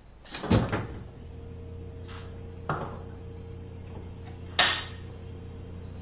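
Refrigerator door pulled open with a loud thump about half a second in, followed by a low steady hum. A smaller knock comes a couple of seconds later and a sharp, loud knock near the end, as things are handled at the open fridge.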